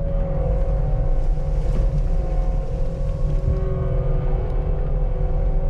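Caterpillar skid steer's diesel engine running steadily as the machine clears brush.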